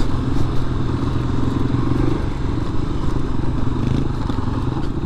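Kawasaki KLR250's single-cylinder four-stroke engine running at a fairly steady speed under way, heard from the rider's position on the bike.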